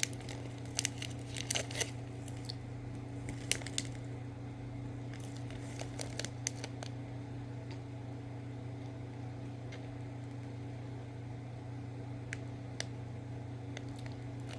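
Faint scattered clicks and crinkles from handling and eating a small candy, busiest in the first few seconds, over a steady low hum.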